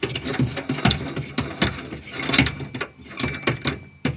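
The large wing nut on a Ford EXP's spare-tire hold-down bolt being unscrewed by hand, making an irregular run of metallic clicks and knocks.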